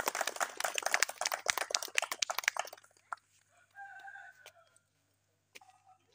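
A burst of rapid, irregular hand clapping for about three seconds, then a rooster crowing faintly about four seconds in.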